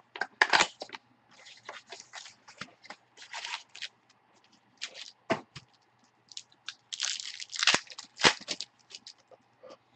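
Trading card pack wrappers crinkling and tearing open, and cards being handled and slid together: irregular crackling and scraping.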